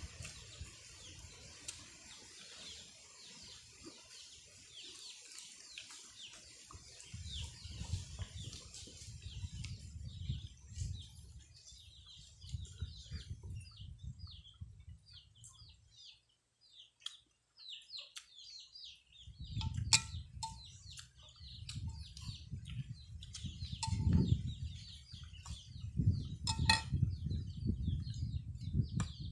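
Birds chirping rapidly and continuously in short falling chirps, with low, close eating and handling noises in two stretches and a few sharp clinks near the end.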